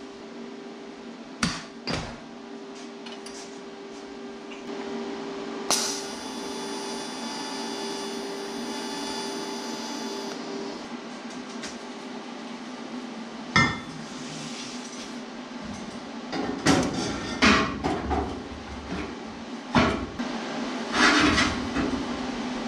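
Steel parts and tools clanking and knocking as they are handled and fitted. One sharp knock about six seconds in leaves a ringing tone that fades over about four seconds, and a run of clanks comes near the end, over a steady low hum.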